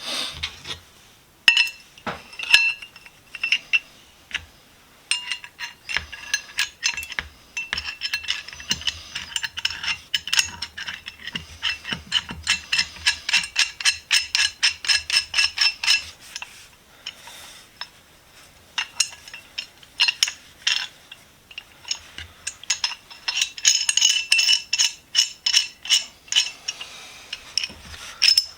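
Steel parts of a restored 12-inch Ridgid pipe wrench clicking and clinking as it is worked by hand, in long runs of quick, sharp metallic clicks with a short pause partway through.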